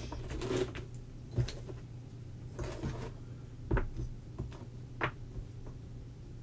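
Wooden jigsaw puzzle pieces being handled and fitted together on a tabletop: a few light, separate clacks and taps with soft handling noise between them.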